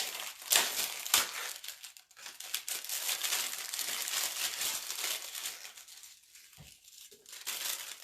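Crinkling and rustling of crinkly material being handled, with two sharp clicks in the first second and a half; the rustling thins out in the last couple of seconds.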